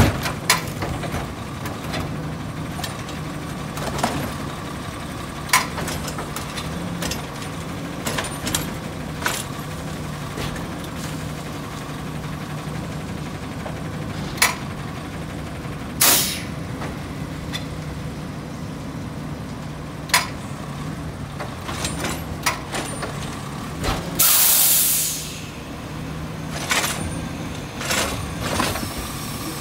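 Garbage truck's diesel engine running steadily while its automated side-loader arm lifts and tips a wheelie bin, with scattered knocks and clanks from the arm and bin. A loud air hiss lasts about a second and a half, a little over 24 s in.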